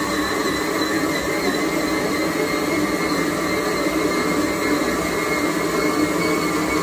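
Electric stand mixer kneading bread dough: a steady motor hum with a constant high whine, even throughout.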